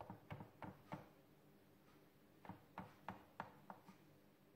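Kitchen knife cutting a square out of the middle of a slice of toast bread on a wooden cutting board, in faint short taps: about four in the first second, then a run of about five more about two and a half seconds in.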